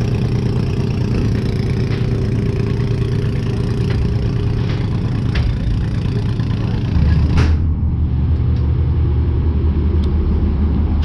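Riverboat's diesel engine running with a steady, deep drone. About seven seconds in the drone turns heavier and lower, and a single sharp knock follows just after.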